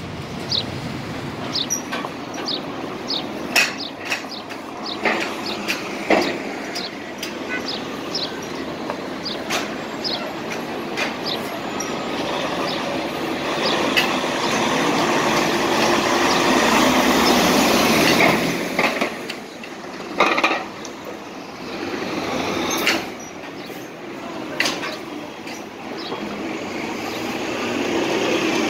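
Street traffic with Nova Bus LFS articulated city buses pulling past at close range: engine and tyre noise that swells to a peak around the middle, falls away, then builds again near the end as another bus draws alongside. Sharp ticks run through the first half, and a few louder knocks come later.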